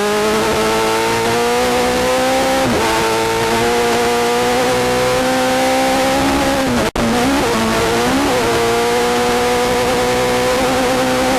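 Class 10 off-road race buggy's engine heard from inside the car at speed, held at high revs with its pitch slowly climbing, under a constant rush of wind and terrain noise. The revs dip briefly about a third of the way in, and again around the middle, where the pitch wavers as the throttle comes off and back on and the sound cuts out for an instant.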